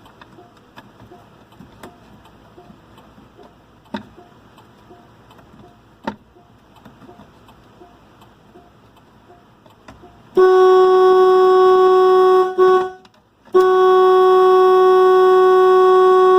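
Faint, even ticking from the hazard flasher with a couple of sharp clicks. About ten seconds in, the pickup truck's horn sounds loud and steady for a couple of seconds, stops briefly, then sounds again for about three seconds.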